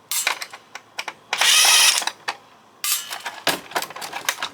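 Cordless drill-driver whirring in short bursts to back out the screws holding a circuit board, the longest burst about a second and a half in. A run of quick clicks and rattles follows near the end.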